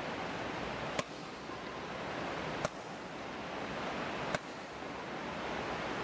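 Badminton racket smashing a shuttlecock over and over, a short sharp crack roughly every second and a half to two seconds: three hits, with a fourth right at the end. Behind the hits runs a steady rushing noise.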